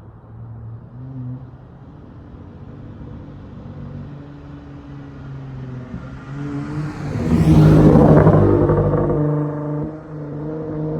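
Dodge Charger SXT's V6 through a Flowmaster Outlaw exhaust, running with a steady low drone. About seven seconds in it swells to a loud surge that rises and falls over about two seconds, then settles back to a steady drone.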